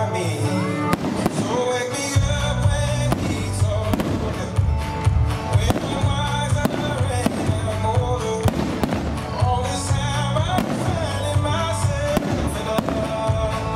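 Aerial fireworks shells bursting in a string of bangs and crackles, mixed with music that plays throughout; a heavy bass line comes in about two seconds in.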